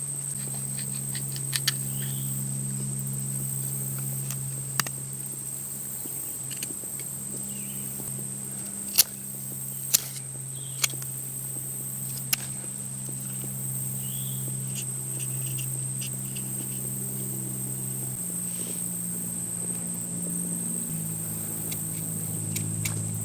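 Steady chorus of insects with a high, constant whine, over a low steady drone, broken by about half a dozen sharp clicks or knocks in the first half.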